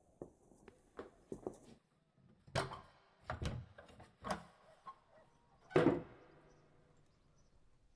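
Wooden knocks and clatters of someone rummaging through a cupboard, a string of separate bumps, the loudest about six seconds in.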